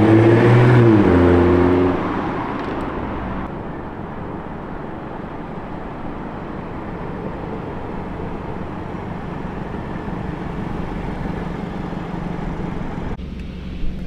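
Car being driven: a loud engine note that falls in pitch over the first two seconds, then a steady road and tyre rumble with a low hum underneath.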